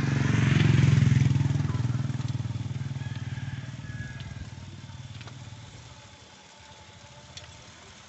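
A motorcycle engine passing on the road, loudest about a second in, then fading away over several seconds.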